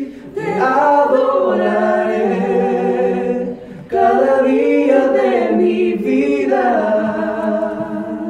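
A small group of men and a woman singing a Spanish worship song a cappella together, on long held notes, with two brief pauses between phrases: just after the start and about four seconds in.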